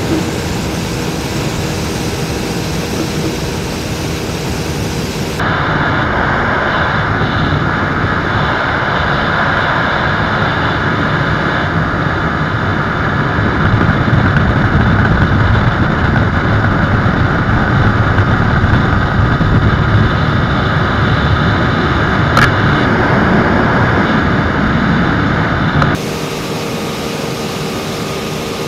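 Steady wind rush over the microphone with engine noise underneath, from a small single-cylinder sport motorcycle at full throttle at about 120 km/h. The sound changes abruptly about five seconds in and again near the end.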